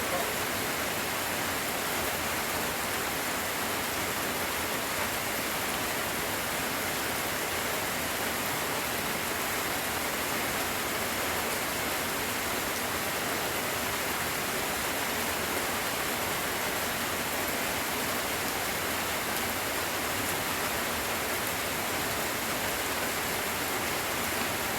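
Steady rain, an even hiss with no break or change in level.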